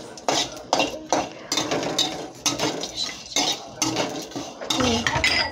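A metal spatula scraping and clinking against a steel kadhai in irregular strokes, stirring whole spices that are roasting in a little oil.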